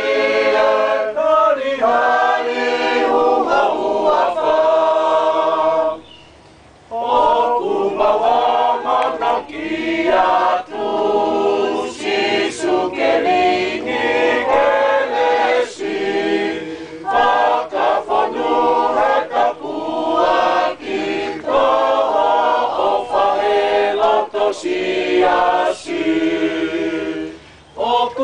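Mixed choir of women and men singing a Tongan song unaccompanied, in phrases, stopping for about a second some six seconds in.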